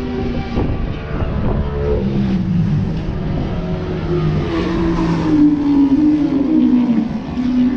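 Motorcycle engines running, their pitch sliding slowly down over a few seconds, over a steady low rumble.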